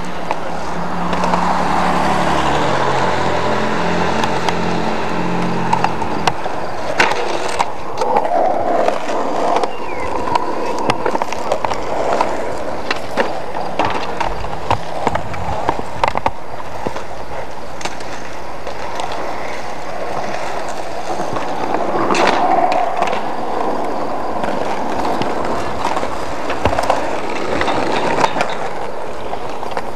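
Skateboard wheels rolling on concrete, with frequent sharp clacks and pops of boards hitting the ground during tricks.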